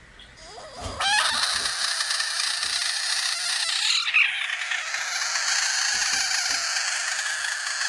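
Poultry clucking and squawking, a dense flock sound that starts suddenly about a second in.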